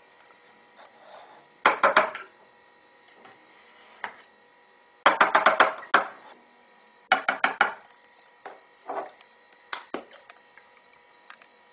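Several short bursts of quick tapping and knocking: a spoon knocking against a plastic mini-chopper bowl and spice shakers tapped and shaken over it. The bursts come about two seconds in, then around five, seven and ten seconds in.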